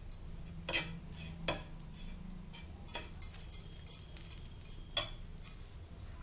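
White plastic spoon scraping and knocking on a flat griddle (tawa) as bread cubes are turned while shallow-frying in ghee, with a few sharper knocks and a light sizzle.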